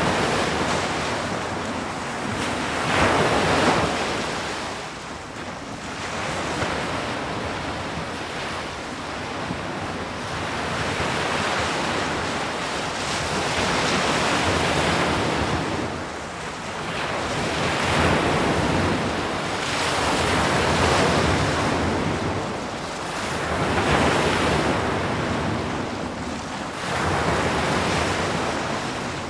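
Ocean waves breaking on a shore, the surf swelling and receding in slow surges every few seconds.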